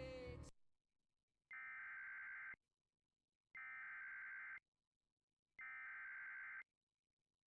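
Emergency Alert System SAME header: three bursts of buzzy, high-pitched digital data tones, each about a second long with about a second of silence between them. Just before the first burst, piano music cuts off about half a second in.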